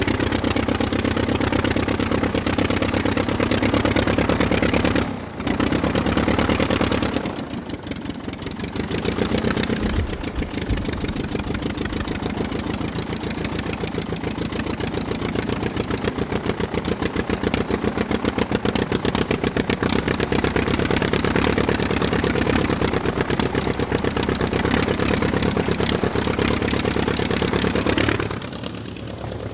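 Aircraft piston engine running steadily, its firing pulses rapid and even. The level dips briefly about five seconds in, again around eight seconds, and near the end.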